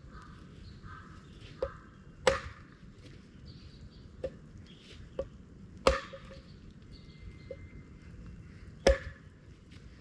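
An axe chopping wood: three heavy strikes about three seconds apart, with lighter knocks in between.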